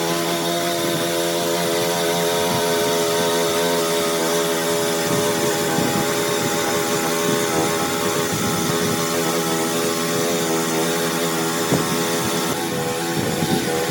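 A motor running steadily at a constant pitch, with a hiss over it.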